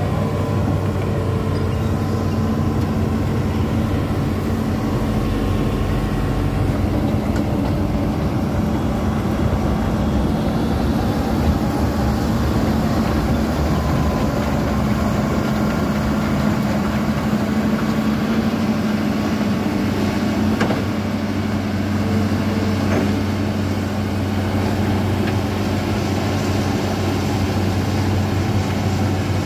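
Diesel engine of a Hitachi Zaxis 210F amphibious excavator running steadily with an even low hum as the machine crawls on its pontoon tracks, with a couple of faint knocks about two-thirds of the way through.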